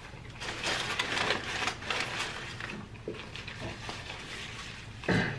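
Close-miked chewing of crispy fried chicken, with crunching and wet mouth clicks, densest in the first two seconds. About five seconds in there is one short, loud mouth sound with a hummed pitch.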